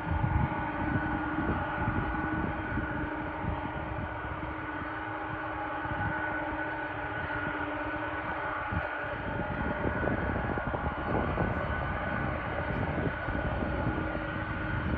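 Boeing 747-400 freighter's four jet engines running at taxi power: a steady multi-tone whine over a continuous rushing rumble.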